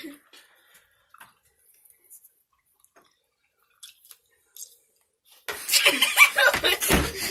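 Faint scattered mouth clicks and smacks from tasting sticky candy slime, then children breaking into loud laughter about two thirds of the way in.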